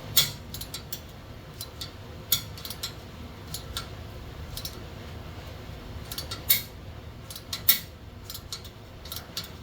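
An 8 mm × 1.25 hand tap being turned into a thin steel exhaust hole, cutting threads: scattered metallic clicks and clinks, a few of them sharper, at irregular intervals.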